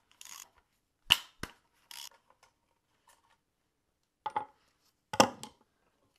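Scattered sharp metal clinks and knocks of a socket wrench and extension on the screws holding an engine's water pump to the cylinder head, as the pump is unbolted. Two crisp clicks come about a second in, and a louder clatter comes near the end.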